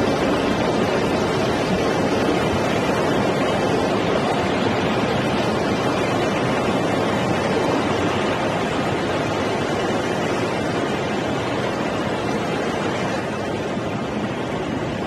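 Tsunami floodwater pouring over a seawall in a loud, steady rush, easing slightly near the end.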